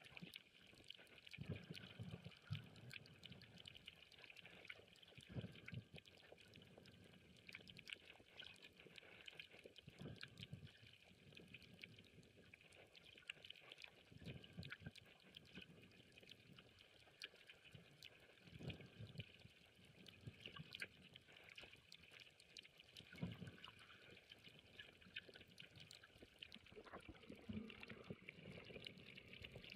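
Faint underwater coral-reef ambience: a dense, steady crackle of tiny clicks, with low muffled swooshes of water against the camera now and then.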